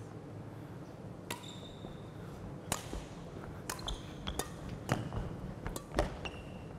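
Badminton rally: a shuttlecock struck back and forth, a run of sharp racket hits starting about a second in, with short squeaks of sneakers on the court floor between some of them.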